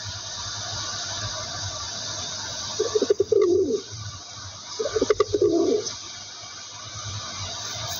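Rock pigeon cooing twice, each coo a low, pulsing call about a second long, the second following about two seconds after the first, over a steady background hiss.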